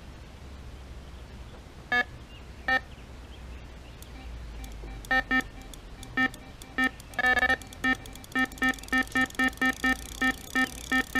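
Electronic carp bite alarm sounding as a fish takes line: a few separate beeps at first, then beeps coming faster and faster to about three a second near the end. This is the start of a run.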